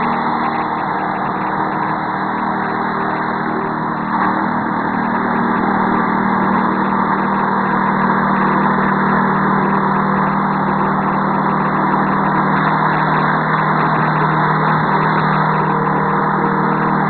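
The 6.5 hp single-cylinder petrol engine of a walk-behind sweeper running steadily, with its rotating nylon brush sweeping dirt off concrete.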